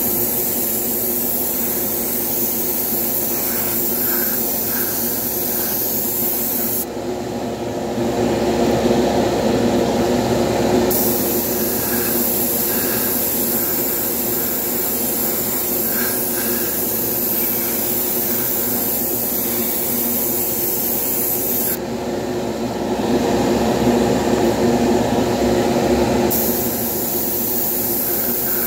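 Airbrush spraying thinned paint in a steady hiss over a steady machine hum. Twice, for a few seconds each, the hiss breaks off while the lower hum grows louder.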